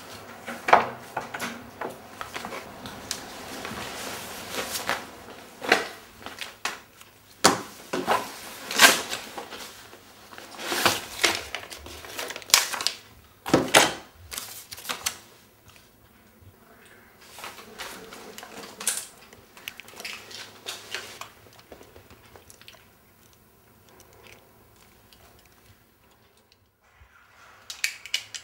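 A string of sharp clicks, knocks and paper rustles as small objects are handled: paper being leafed through and a camera being picked up. They are loudest and densest in the first half, then fewer and fainter.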